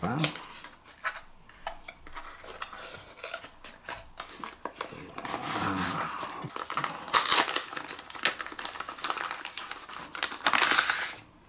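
Product packaging being opened and unpacked by hand: plastic wrapping crinkling and rustling, with small clicks and knocks of box parts and accessories being handled. The rustling is loudest in two bursts, about seven seconds in and near the end.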